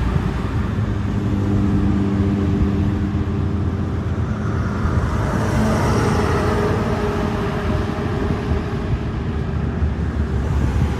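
Engine running steadily with a low drone, its pitch shifting a little about halfway through.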